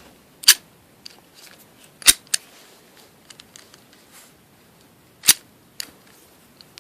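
Master Lock M15 padlock being worked by hand: three sharp metallic clicks a second or more apart, a smaller click right after the second, with faint ticks between.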